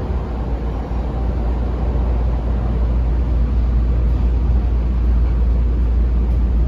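Interior running noise of a Kita-Osaka Kyuko 9000 series trailer car (no traction motors) travelling through a subway tunnel between stations: a steady, deep rumble of wheels on rail that grows slightly louder about a second in.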